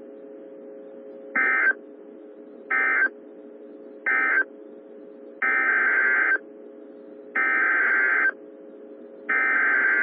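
Emergency Alert System SAME digital data bursts: warbling, modem-like tones. There are three short bursts, the end-of-message code closing one weather warning, then three longer bursts, the header of the next warning message, over a faint steady hum.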